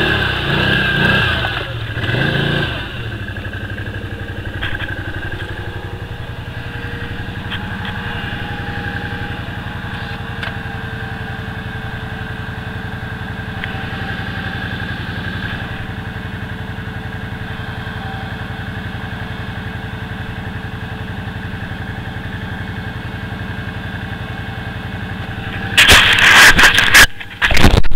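Can-Am Outlander 500 ATV's V-twin engine, louder for the first few seconds, then idling steadily. Near the end a loud, ragged burst of noise cuts in.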